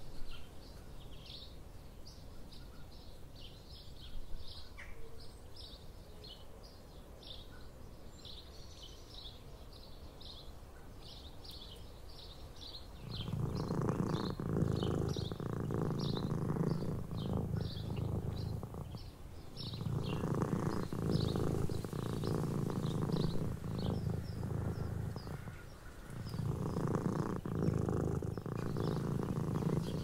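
A black-and-white cat purring close to the microphone, starting about halfway through and going on in long steady stretches with two brief breaks. Small birds chirp throughout.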